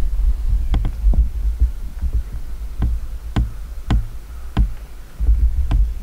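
Low, uneven thumping rumble with a string of sharp crackles and snaps, several about half a second apart.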